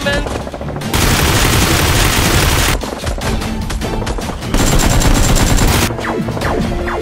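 Two long bursts of rapid machine-gun fire sound effects, the first about a second in and the second past the middle, over background music.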